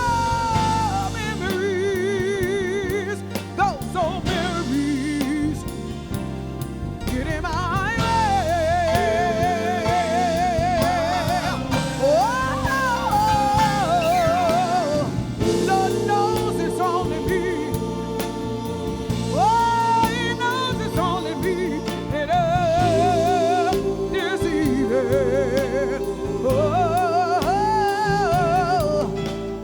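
Soul band performing a slow song, a singer holding long notes and sliding through runs with wide vibrato over sustained chords.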